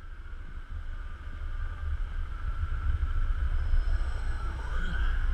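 Low rumble with a steady high whine, growing steadily louder, picked up by a GoPro riding on the Tornado roller coaster train.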